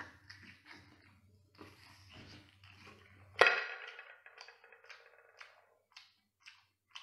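Mouth sounds of a person eating cooked abalone: soft slurping and sucking at first, then a sudden loud wet smack about three and a half seconds in, followed by short chewing smacks about twice a second.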